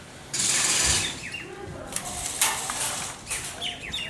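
Loud bursts of rushing noise, the first beginning about a third of a second in and two shorter ones later, with small birds chirping behind them.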